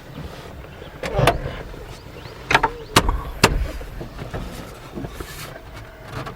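A few sharp plastic clicks and knocks, four of them over about two and a half seconds, as the dash trim panel and A/C control switch are handled and fitted back into a Jeep Wrangler TJ's dashboard.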